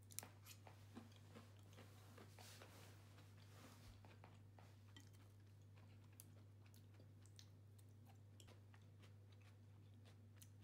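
Very faint eating sounds: scattered soft clicks of chopsticks against a salad plate and quiet chewing, over a steady low hum.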